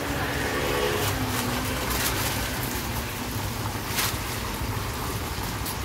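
Oil sizzling steadily in a deep fryer over a low hum, with crinkles of a thin plastic carrier bag being handled, sharpest about two and four seconds in.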